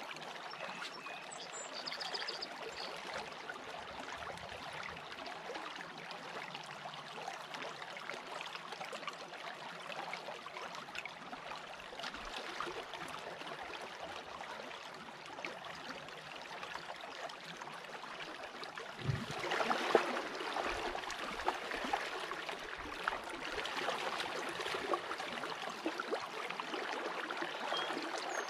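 Shallow creek riffle running over gravel, a steady babbling rush of water. About two-thirds of the way through there is a thump and a louder stretch of splashing.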